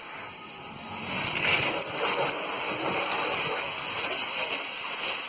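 Air-pressurized foam tank spraying car-wash foam through its lance: a steady hiss of air and foam jetting out, surging a little as the spray plays over the van's body and wheel.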